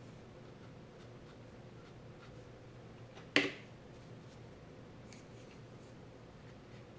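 Wide flat brush stroking lightly over cold-pressed watercolor paper to soften a painted edge, in faint scratchy strokes over a low steady hum. One sharp click comes about halfway through.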